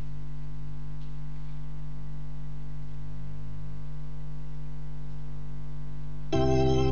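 Steady electrical hum from the sound system. About six seconds in, an organ comes in loudly with sustained chords, starting the choir's accompaniment.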